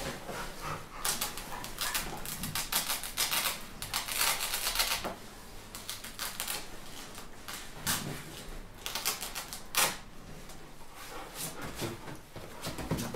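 Irregular bursts of close rustling and crackling, as of paper and cloth being handled, with a sharp click about ten seconds in.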